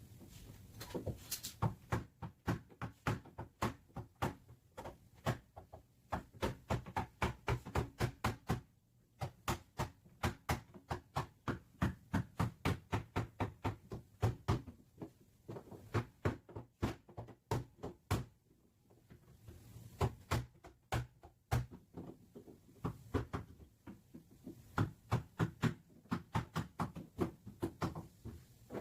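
Body hammer tapping out a dented car back panel, a steady run of sharp metal strikes about three a second, stopping briefly a few times before going on.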